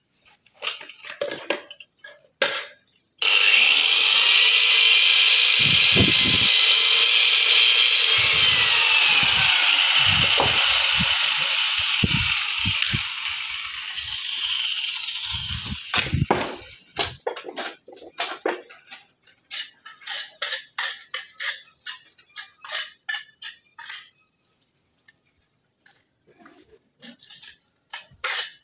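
Electric angle grinder cutting marble stone: it starts suddenly a few seconds in, runs loud and steady for about twelve seconds with its pitch dropping in the middle, then dies away. A run of light quick taps and knocks follows.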